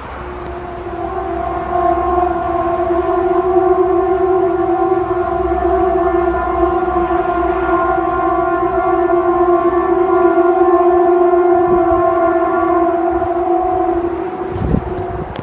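A loud, horn-like drone recorded in the open air. It holds one low, steady pitch with many overtones, swells in over the first couple of seconds, holds for about twelve seconds and fades out near the end. It is one of the unexplained 'trumpet' sounds heard from the sky. A dull thump comes just before it ends.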